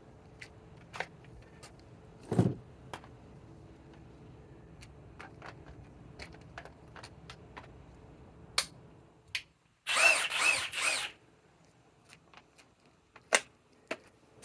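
Tool-handling clicks and knocks, then a short burst of a cordless drill running for about a second, with a wavering pitch, about ten seconds in.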